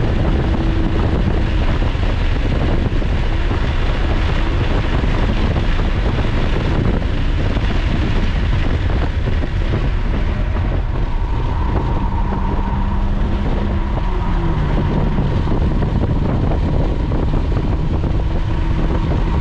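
Lotus Evora's V6 engine with heavy wind and road noise inside the cabin at high speed, the car slowing from over 100 mph. The engine note steps down in pitch about three-quarters of the way through as revs fall.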